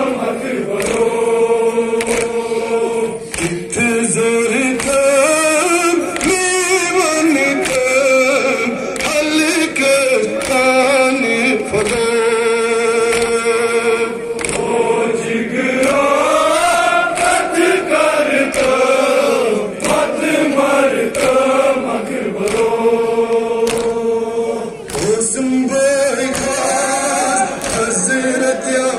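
Kashmiri nowha: a crowd of men chanting a mourning lament together in long held, melodic lines. Sharp slaps, the chest-beating (matam) that goes with nowha, cut through the singing.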